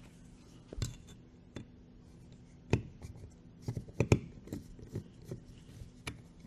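Small metal parts of a Zenith carburetor being handled with hand tools while the choke butterfly is taken out: scattered sharp clicks and taps, a dozen or so at uneven intervals, over a faint steady hum.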